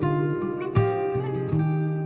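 Background music: acoustic guitar strummed and picked, with chords struck about every half second.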